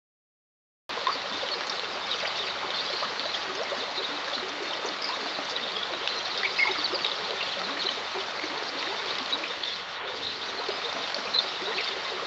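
Running stream water, a steady trickling flow with small scattered splashes, starting suddenly about a second in after dead silence.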